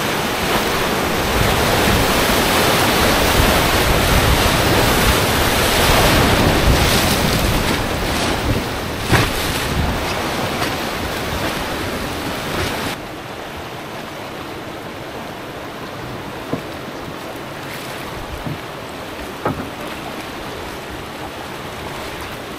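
Whitewater rapid rushing and churning around a rowed raft, a dense steady noise of turbulent river water. It drops abruptly to a lower level about halfway through, with a few short sharp sounds afterwards.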